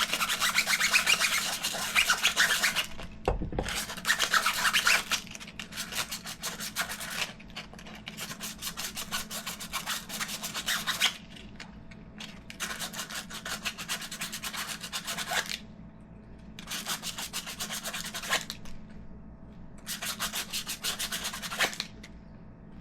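Sandpaper scrubbed by hand over a rubber RC car tire in quick back-and-forth strokes, in several bouts with short pauses, roughening the surface so the glue will grip. There is a brief low bump a few seconds in.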